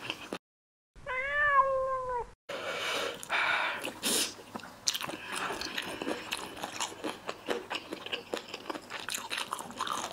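A single cat meow, about a second and a half long, rising and then slowly falling in pitch, cut in cleanly between short gaps of silence. After it comes close-up chewing with small crunches and clicks.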